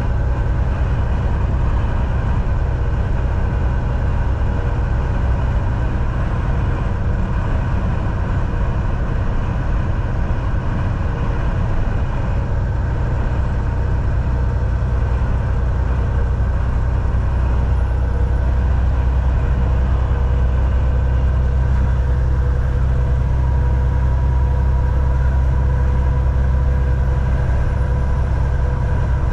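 Semi truck driving at steady speed: a constant low engine and road rumble with a few steady humming tones over it.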